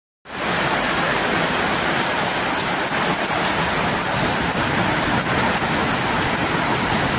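Heavy rain pouring steadily onto a concrete alley and the house roofs beside it, a dense even hiss starting a moment in.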